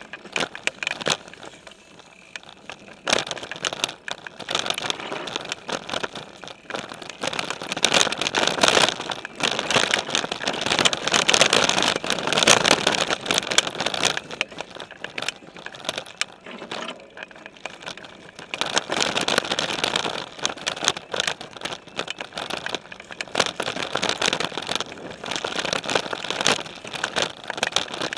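Specialized Stumpjumper mountain bike ridden fast over a dirt trail strewn with dry leaves, picked up by a camera mounted on its frame: tyres crunching through leaves and dirt, with the bike rattling and clicking over bumps. It swells louder in stretches.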